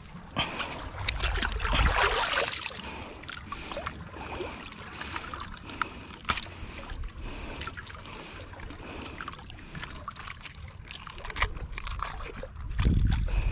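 Water sloshing and splashing, loudest about two seconds in, with scattered small clicks and knocks, and wind rumbling on the microphone near the end.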